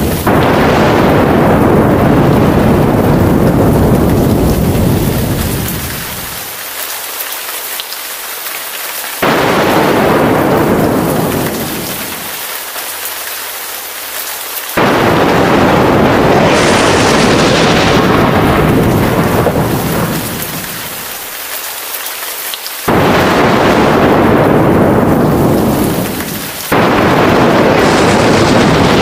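Thunderstorm with steady heavy rain: loud thunder rumbles break in suddenly about four times and roll away over several seconds, leaving the hiss of the rain between them.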